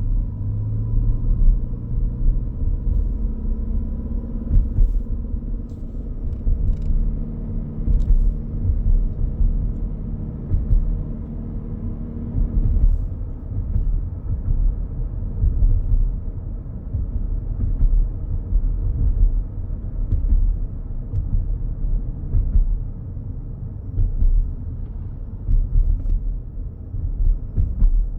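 Cabin sound of a 2025 Toyota Grand Highlander Hybrid driving with the windows closed: a steady low road and drivetrain rumble. A faint high whine sits on top for the first few seconds, and steady humming tones stop about twelve seconds in. The owner reports this high-pitched electrical whine under acceleration as a fault.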